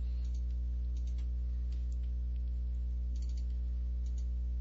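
Steady electrical mains hum with a stack of overtones in the recording, and a few faint, scattered computer clicks as the editor is operated.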